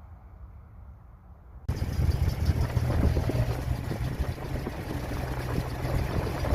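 1976 Datsun 280Z's straight-six engine running at a steady idle, coming in suddenly about two seconds in after a quiet stretch.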